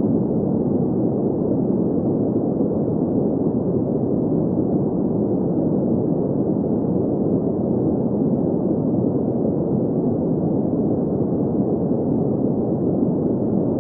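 Steady synthetic green noise: an even hiss-free rush centred in the middle-low range, with nothing above about 2 kHz and no change in level.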